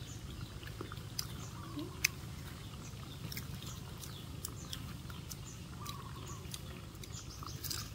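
A macaque chewing and biting into a piece of fried chicken: scattered short, wet clicks and smacks, the sharpest about two seconds in, over a steady low hum.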